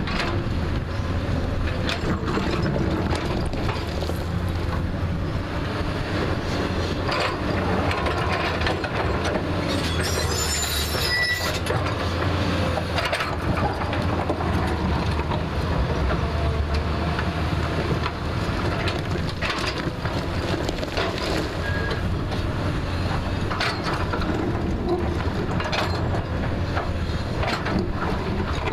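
JCB backhoe loader's diesel engine running steadily under load while it digs, with scattered clanks and scrapes of the steel bucket and arm against earth and rock. A brief metallic squeal comes about ten seconds in.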